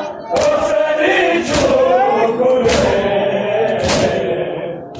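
A crowd of men chanting a Muharram noha (mourning lament) in unison, with loud strokes of chest-beating (matam) landing together about once a second.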